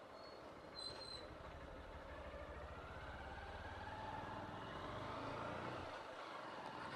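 A vehicle engine running faintly, its pitch rising over a few seconds as it speeds up, then easing off near the end. Two brief high chirps sound near the start.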